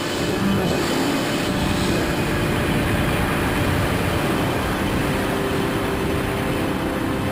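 Steady rushing of air over a pressure-suited skydiver in free fall, picked up by a body-mounted camera's microphone, with faint sustained tones underneath.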